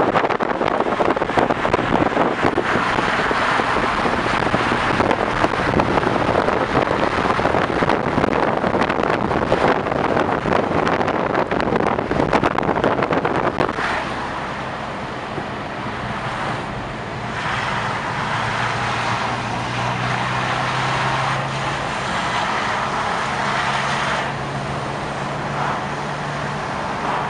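Car driving on a wet road, heard from the moving car. For about fourteen seconds wind and road noise buffet loudly; then the sound drops to a quieter cabin, where a low engine hum runs under tyre noise and shifts in pitch a few times.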